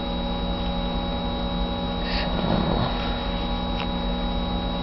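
Steady electrical mains hum: a low buzz made of several steady tones, with a thin high whine above it. A brief soft rustle comes about halfway through.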